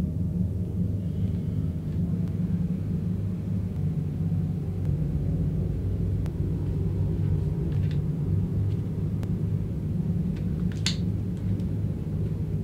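A steady low rumbling drone, with a few faint clicks and the sharpest click about eleven seconds in.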